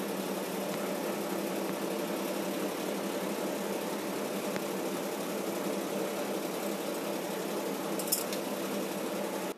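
A small motor running with a steady hum made of a few even tones; a short tick about eight seconds in.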